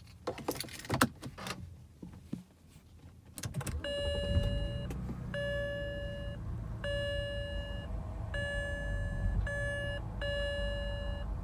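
A few clicks and knocks, then from about four seconds in a 2006 BMW 325i's N52 straight-six runs at idle with a low, uneven rumble, the rough idle the owner is showing. Over it an in-car warning chime sounds six times in long tones with short gaps.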